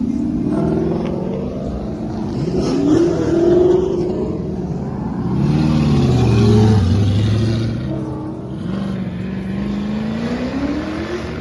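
Several car engines revving and accelerating, their pitch rising and falling over one another, loudest about two-thirds of the way through, with one engine winding steadily up near the end.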